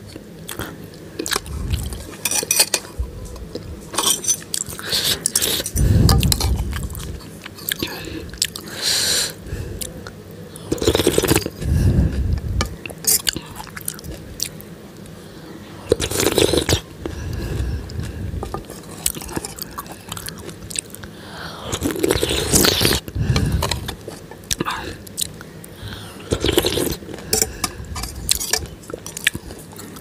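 Close-miked eating: spicy soupy Maggi instant noodles slurped up from the bowl and chewed, in repeated irregular mouthfuls, with a few short clicks between them.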